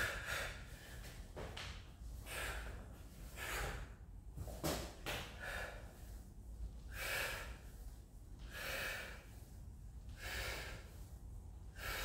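A man breathing hard from exertion during a burpee workout, with a loud breath about every second and a half.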